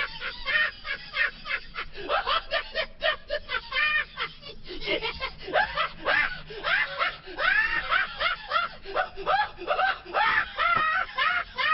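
A rapid run of short, high squeals and yelps, each sliding up and down in pitch, following one another for the whole stretch.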